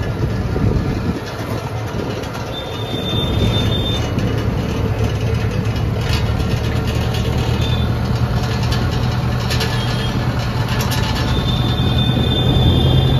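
Tractor engine running under way with a steady low drone that strengthens about three seconds in, along with rattling and clanking and a thin high squeal that comes in twice.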